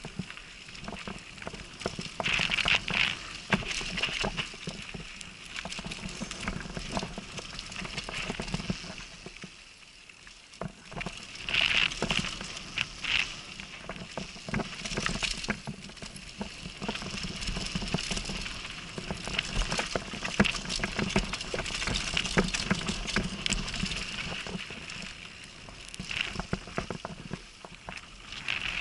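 Downhill mountain bike riding fast down a dirt and gravel trail: tyres crunching over the loose surface, with a constant rattle of clicks and knocks from the bike. Louder scrubbing bursts come every few seconds, and the sound drops away briefly about ten seconds in.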